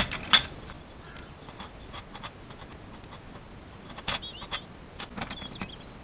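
Scattered light clicks and taps of small plastic kit parts, screws and a tool being handled during model assembly, with one sharper click about a third of a second in.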